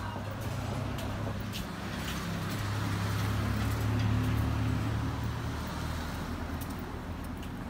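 Street traffic: a low motor-vehicle engine hum that swells louder toward the middle and then eases off, over a general city-street background.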